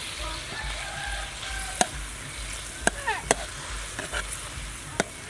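Sauce sizzling in a metal wok while a steel ladle stirs it, with four sharp clinks of the ladle against the wok.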